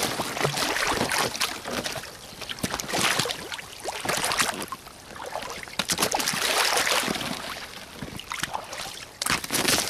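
Tall Soviet-made 'Red Bogatyr' rubber boots wading through shallow meltwater and slush, splashing and sloshing with each step.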